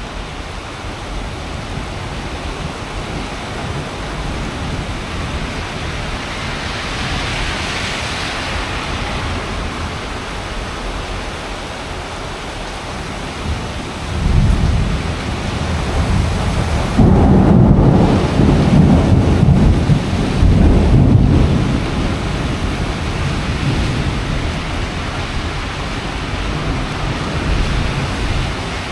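Heavy rain falling steadily during a thunderstorm. About halfway through, a long roll of thunder builds into a deep rumble that stays loud for several seconds, then slowly dies away.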